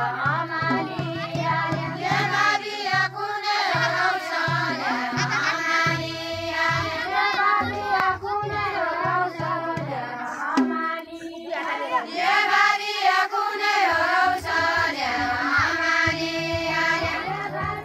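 Group of women singing a Nepali deuda folk song together, their voices rising and falling in a repeating melody over a steady low pulse.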